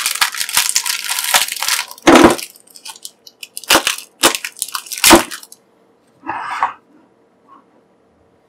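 Small plastic parts bag rustling as hands turn it over and squeeze it, then several separate sharp crackles of the plastic.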